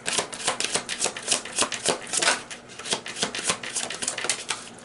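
A deck of oracle cards shuffled by hand, overhand: a quick, uneven run of card flicks and slaps.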